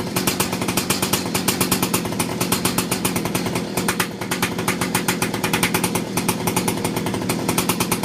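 49cc two-stroke engine of an X2 Super pocket bike running steadily on its first test run after restoration, firing in a fast, even stream of pulses through the stock exhaust can, rebuilt as a silencer with a perforated stainless-steel core wrapped in steel wool.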